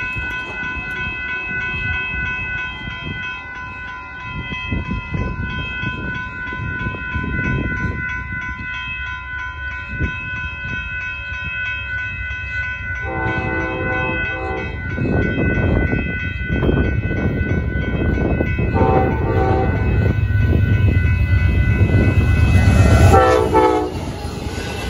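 Amtrak Texas Eagle passenger train approaching a road crossing. Over a steadily ringing crossing bell, the locomotive's horn sounds a long blast about halfway in, a short one a few seconds later and another as it reaches the crossing near the end, while the engine and wheel rumble grows louder and then drops off.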